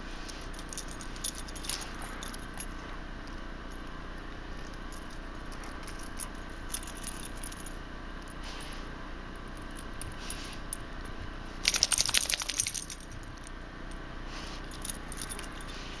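Metal dog tags jingling on the collars of two Labrador retrievers as they move, with scattered light clinks and a burst of rapid jingling lasting about a second near the twelve-second mark.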